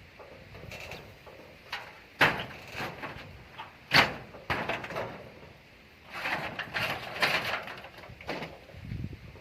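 Irregular knocks, clatters and scraping, with the sharpest knocks about two and four seconds in and a busier run of clatter from about six seconds.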